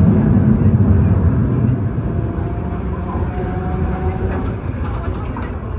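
Electric streetcar on the St. Charles line running along its rails, heard from aboard as a steady low rumble that is loudest in the first second or so and then eases a little.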